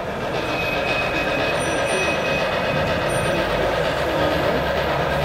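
HO scale model steam locomotive running along the layout's track: a steady, even rumble mixed with exhibition-hall background noise.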